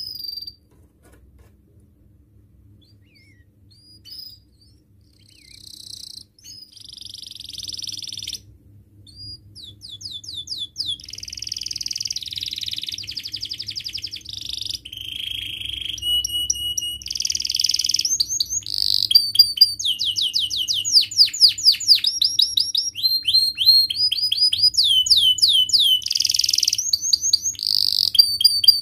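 Domestic canary singing. After a few quiet seconds with a couple of faint notes, the song starts about five seconds in and builds into a long, increasingly loud run of fast rolling trills, rapidly repeated chirps and held whistled notes.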